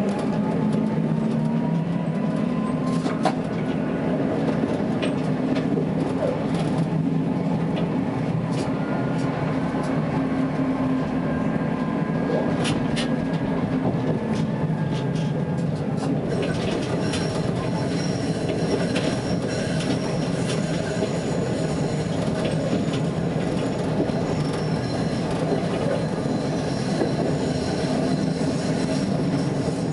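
Tatra T3S tram running, heard from the driver's cab: a whine from the traction drive rises in pitch over the first few seconds as it gathers speed, wheels click over rail joints, and from about halfway thin high wheel squeal joins in as it rounds a curve.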